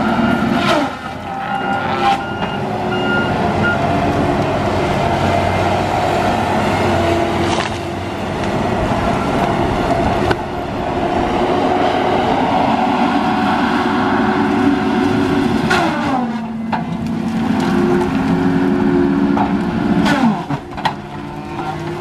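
Tigercat LX830D tracked feller buncher's diesel engine and hydraulics running hard as the machine works trees. The engine note drops sharply about sixteen seconds in, then picks back up.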